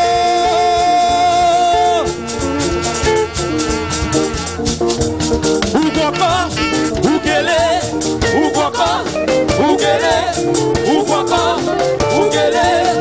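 Live church praise music: a band with singing. A long held note gives way about two seconds in to a fast, steady percussion beat, with voices singing a wavering melody over it from about six seconds in.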